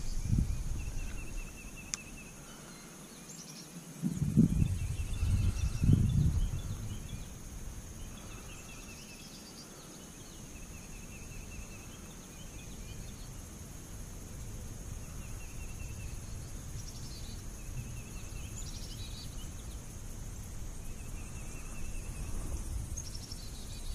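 Outdoor lakeside ambience: a steady high insect drone with short chirping trills repeating every few seconds. Two low rumbles stand out, about four and a half and six seconds in.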